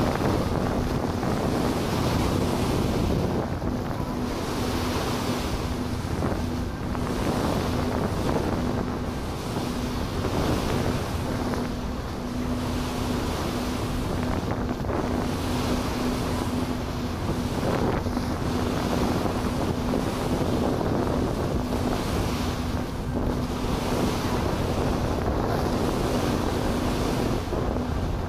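Wind buffeting the microphone on a harbour ferry's deck, over water washing past the hull and the ferry's engine humming a steady low tone that fades in and out.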